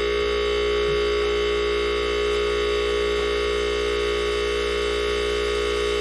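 Window air conditioner compressor, rigged as an air compressor, running with a steady electric hum while it pumps a bottle up to around 100 psi.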